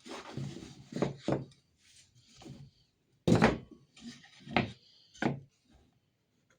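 A series of wooden knocks and thunks, about five sharp ones with some shuffling between, the loudest a little over three seconds in: pieces of wood being handled and set down.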